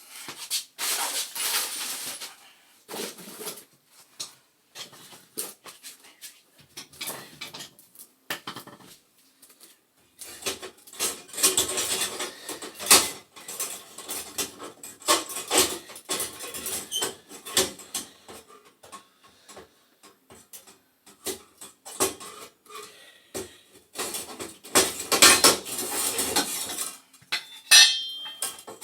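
Irregular metal clinks, knocks and scrapes of tools and sheet-metal burner and pilot parts being handled inside a gas boiler, with pauses between bursts of activity.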